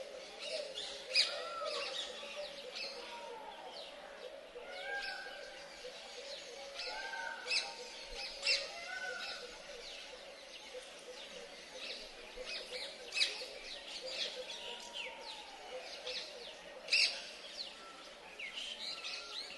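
Birds calling: many short, sharp chirps scattered throughout, mixed with repeated rising-and-falling whistled notes.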